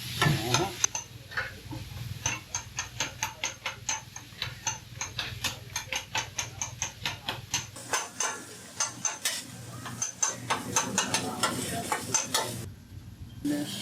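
Metal spatulas chopping ground beef on a flat-top griddle: a fast, rhythmic run of clanks, about three or four a second.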